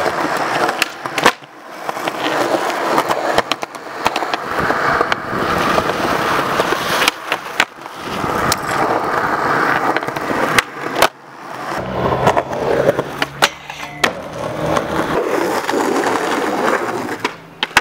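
Skateboard wheels rolling over concrete and paving with a steady gritty rumble. It is broken every few seconds by sharp clacks of the deck and tail as tricks are popped and landed.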